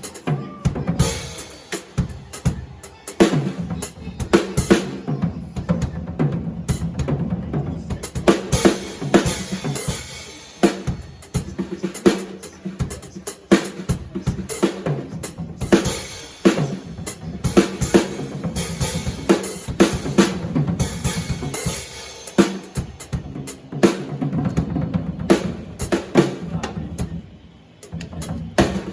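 A drum kit played as a steady groove: bass drum and snare with rimshots in dense, fast patterns, with a brief drop-out a little before the end.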